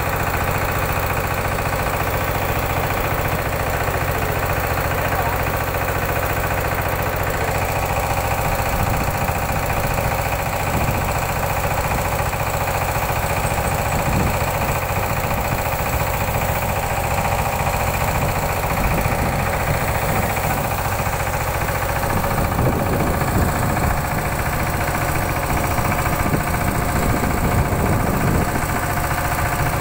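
Small Kirloskar engine-driven high-pressure sprayer pump running steadily at a constant speed, feeding the hose and spray gun.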